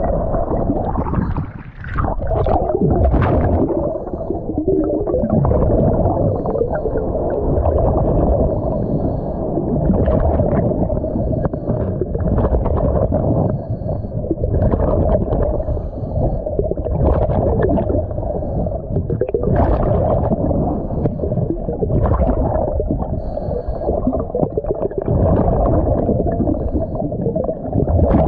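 Muffled underwater rumble and gurgling from a diver's scuba regulator and exhaled bubbles, heard through a camera's waterproof housing, with a louder bubbling burst every two to three seconds.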